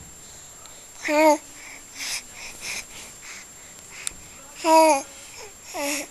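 Baby cooing and babbling: three short, wavering coos with soft breathy sounds between them.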